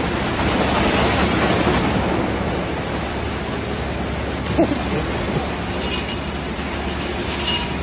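Ryko Soft Gloss Maxx 5 automatic car wash running: water spraying and cloth brushes spinning, a steady rushing hiss.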